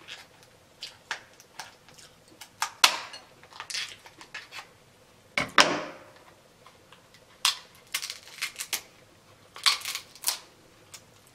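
King crab leg shell being cut with kitchen scissors and cracked apart by hand: irregular sharp cracks and snaps, the two loudest about three and five and a half seconds in.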